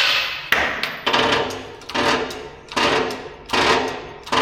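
A hand-pumped workshop press being worked in steady strokes, about one every three quarters of a second, as a rear wheel hub is pressed into its bearing. Each stroke starts sharply and fades.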